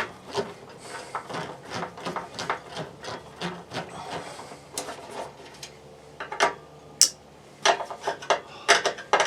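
Screwdriver working screws out of an RV furnace's burner chamber cover: irregular scraping and clicking, with a quick run of sharper clicks near the end.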